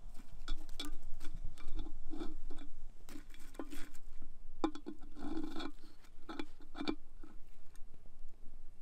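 A metal lid lifter clinking and scraping against a coal-covered cast-iron skillet lid, with embers and ash crunching: an irregular run of sharp clicks and knocks.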